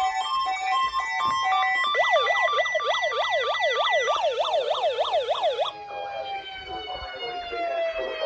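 Warning siren in its fast wail, rising and falling about three times a second, then winding down in one slow falling tone. It is sounded as a test of the public warning system. Before the wail starts, a few pulsing electronic tones play.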